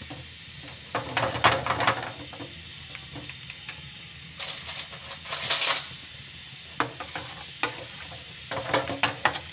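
Chopped garlic frying in hot oil in a steel pan for a tempering (baghar), a steady sizzle. A metal spoon stirs it, scraping and clinking against the pan in several short bouts.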